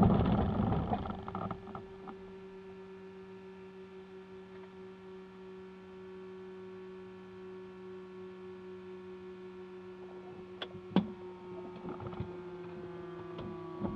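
A single-engine light aircraft's piston engine runs down to a stop after shutdown, its noise dying away in the first second or two. A steady electrical hum and whine from the cockpit instruments follows. A few switch clicks come after about ten seconds, and then the whine starts to sink slowly in pitch.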